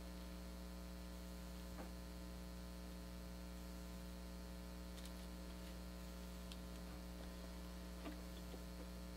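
Steady low electrical mains hum, with about four faint clicks as RAM modules are handled and pressed.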